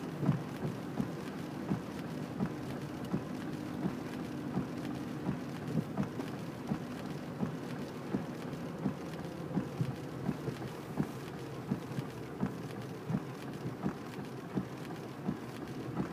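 Rain on a car driving through a wet street, heard from inside the cabin: a steady low rumble and hiss with frequent sharp knocks, about one or two a second.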